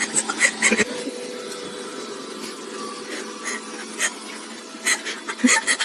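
Robot vacuum cleaner running with a steady hum, with scattered short clicks and scrapes, clustered near the start and near the end.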